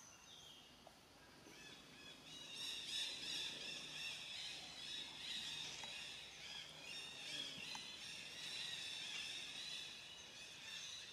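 A dense chorus of high, rapidly repeated chirps from outdoor wildlife, which swells about two seconds in and carries on steadily.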